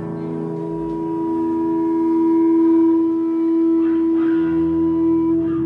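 Electric guitar amplifier feedback: one loud, steady howling tone that swells over the first few seconds and then holds.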